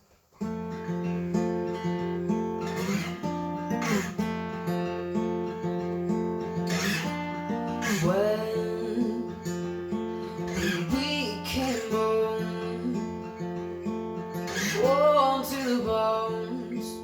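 Acoustic guitar strumming chords as a song's instrumental intro, starting about half a second in.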